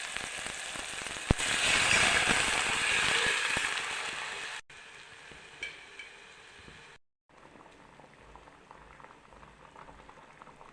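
Food sizzling and frying in a hot pan with small crackles. About a second and a half in, the sizzle turns much louder for about three seconds, then drops suddenly to a quieter sizzle.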